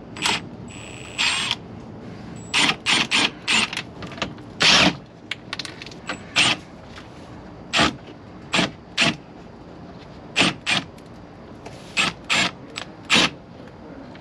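Cordless impact gun with a 7mm socket run in many short bursts with a high motor whine, backing out the bolts that hold a plastic panel.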